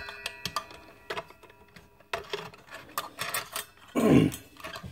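Small metal and plastic parts of a miter saw's blade guard assembly clicking and clinking as they are fitted by hand, with a metallic ring fading over the first second and a half. A brief murmur from the worker about four seconds in.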